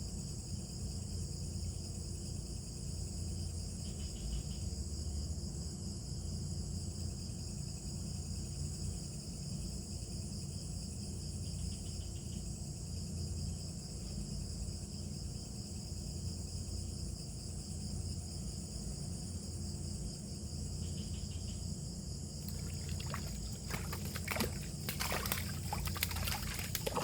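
Insects chirring steadily, with a low rumble underneath. Near the end comes an irregular run of sharp clicks and knocks.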